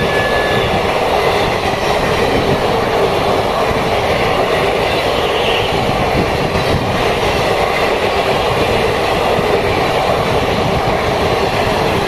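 Indian Railways express train coaches passing close at speed: a loud, steady rush and rumble of wheels on the rails.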